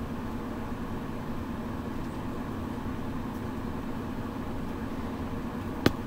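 Steady low background hum and hiss, with one sharp click near the end.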